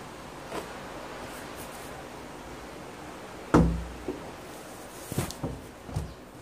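A heavy thump a little past halfway, then a few lighter knocks: a wooden door being moved and bumping.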